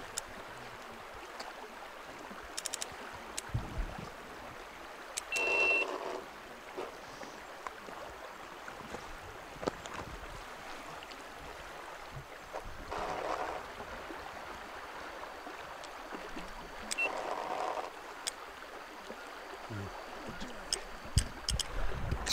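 Steady rush of a fast-flowing river running over rock. A few short, fainter sounds come and go on top, and light clicks gather near the end.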